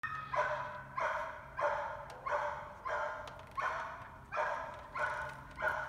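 A dog barking repeatedly at an even pace, about nine barks, roughly one every two-thirds of a second.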